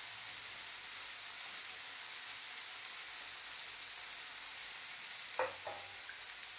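Squid, onions and freshly grated coconut frying in coconut oil in a non-stick pan: a steady, even sizzle. One brief, sharper sound stands out about five and a half seconds in.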